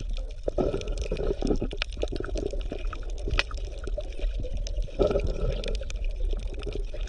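Bubbling, sloshing water with many small pops, like underwater ambience.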